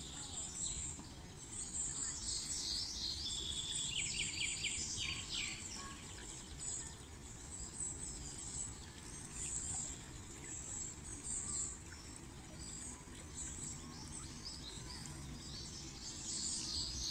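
Birds chirping and singing, with clusters of quick falling chirps a few seconds in and again near the end, over a steady low background rumble.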